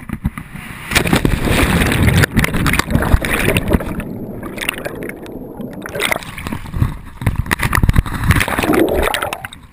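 A person jumping feet-first into a river with a body-worn action camera: loud rushing and splashing of the fall and water entry, the sound turning muffled underwater from about four seconds in, then water sloshing and gurgling around the camera as he comes back up.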